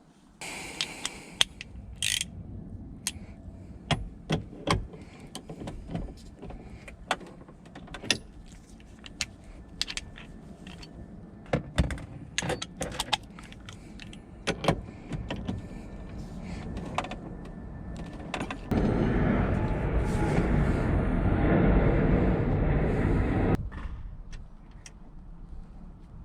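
Metal clicks, clinks and rattles of hand tools and fittings while a steering wheel is being fitted to its hub. About three quarters of the way through, a steady louder noise runs for about five seconds, then stops.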